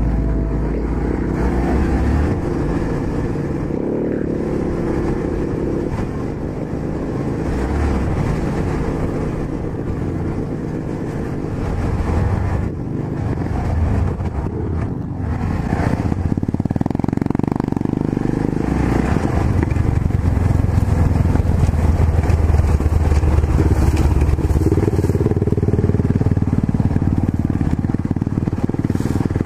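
Yamaha XT 660Z Ténéré's single-cylinder engine running under way on a dirt road, its level rising and falling with the throttle, with a steady rush of wind and road noise over it.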